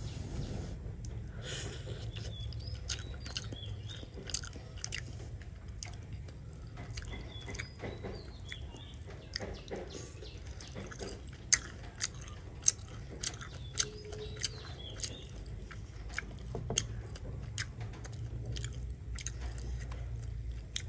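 Crunching of crisp-skinned grilled fish: a scatter of short, sharp crackles and clicks, a few louder ones bunched a little past the middle, over a low steady rumble.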